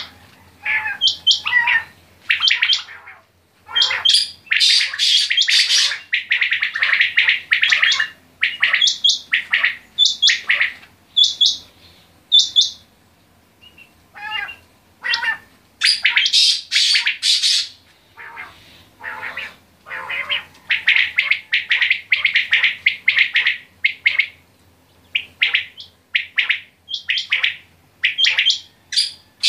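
Several caged common quails calling: sharp, rapid chirping calls from more than one bird, overlapping in dense bouts with a couple of short lulls.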